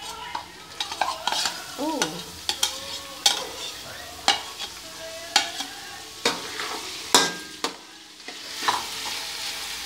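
Minced beef sizzling as it goes into a hot aluminium wok of fried garlic and onion and is stirred. A metal utensil scrapes and clinks against the pan about once a second.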